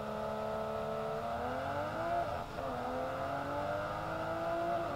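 Sports car engine at full throttle, accelerating hard from about 50 mph: its pitch climbs, drops at a quick upshift about halfway through, then climbs again to another shift near the end.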